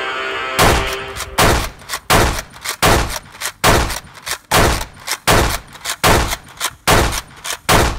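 A string of about a dozen loud gunshot bangs at uneven intervals, each with a short ringing tail, that stop abruptly near the end. These are gunfire sound effects cut over a Nerf blaster fight.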